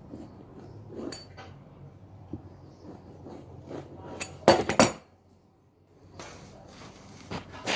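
Kitchen utensils and dishes clinking and knocking on a counter: scattered light clicks, a quick cluster of loud knocks about halfway through, and two more knocks near the end.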